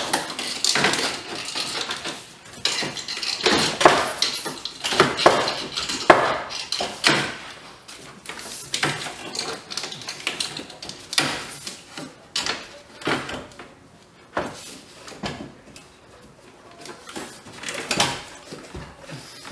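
Irregular clattering and knocking of metal and plastic parts as a car's AC condenser is worked down into place in front of the radiator, its pegs being lined up with the mounting holes. The knocks come thick and loud at first and grow sparser and quieter later.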